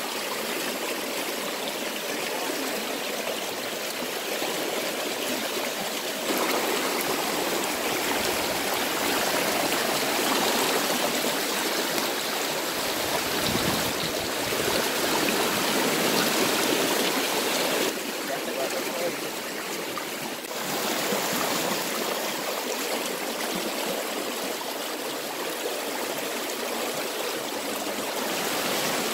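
Fast-flowing muddy river rushing over rocks in a steady wash of water noise, its loudness stepping up or down suddenly a few times.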